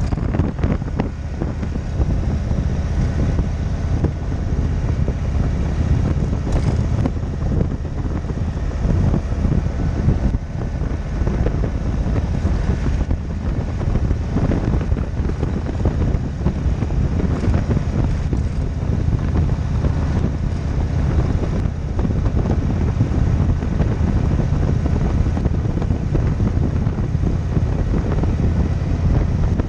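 Cruiser motorcycle engine running steadily at road speed, with wind noise on the bike-mounted microphone.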